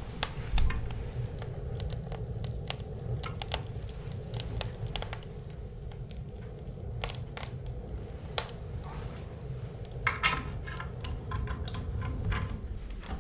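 Wood fire crackling and popping in the open firebox of a US Stove 1269E wood stove, with irregular sharp snaps and a quicker run of them about ten seconds in, over a low steady rumble.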